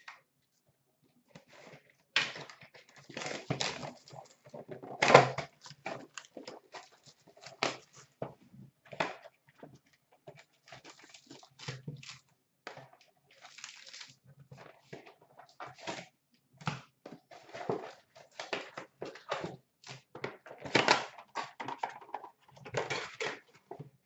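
Irregular crinkling, rustling and knocks of cardboard and packaging as an Upper Deck hockey card mega box is torn open and its packs are taken out, loudest about five seconds in.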